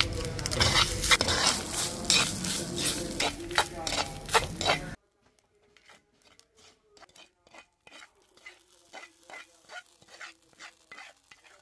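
Freshly grated coconut sizzling as it roasts in oil with dried red chillies and curry leaves in a clay pot, a wooden spatula stirring and scraping through it. About five seconds in the frying noise cuts off abruptly, leaving softer, scattered scrapes of the spatula.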